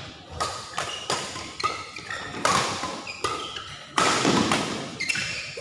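Badminton rally: rackets striking the shuttlecock in a quick exchange, sharp cracks that ring on in the hall, the loudest about two and a half and four seconds in. Shoes squeak briefly on the court mat between the hits.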